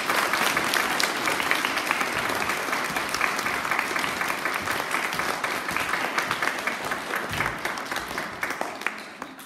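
Audience of schoolchildren and staff applauding in a hall: dense, steady clapping that tapers off near the end.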